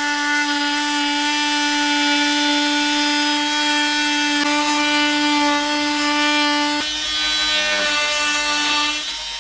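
Oscillating multi-tool with a segment saw blade cutting through pine tongue-and-groove ceiling cladding, running as a steady high whine. The tone changes a little about seven seconds in, and the tool stops near the end.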